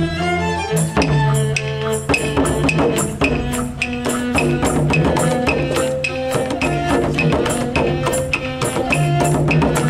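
Live folk-style ensemble music: bowed strings (violins, violas and cello) holding sustained notes, with frame drum and tambourine coming in about a second in to beat a steady rhythm.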